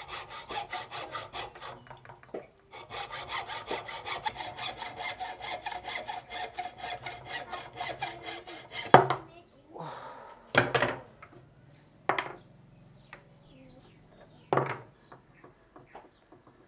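A hand saw cutting through wood in quick, even strokes, about four a second, with a short pause about two seconds in. The sawing stops about nine seconds in, and four sharp wooden knocks follow over the next several seconds.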